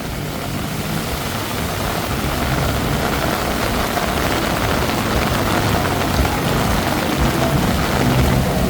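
Heavy rain pouring down on a flooded street, with a low engine hum from traffic underneath. The sound slowly grows louder.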